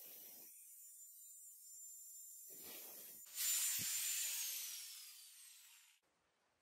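Angle grinder with an abrasive disc grinding a steel knife blade, then running free with a steady high whine. A loud rasp about three and a half seconds in, after which the motor winds down, its whine falling in pitch, until the sound cuts off near the end.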